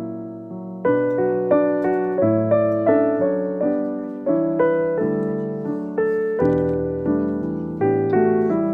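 Background music: a gentle piano melody, notes struck about two or three times a second and left to ring.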